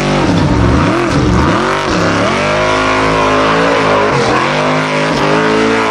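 Formula Offroad buggy engine revving hard on a steep dirt hillclimb. The revs surge up and down several times in the first couple of seconds, then are held high and fairly steady.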